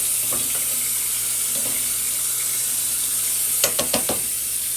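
Steady sizzling from a pot on the stove where steak cooks in water and beef bouillon, with a few quick clicks about three and a half seconds in.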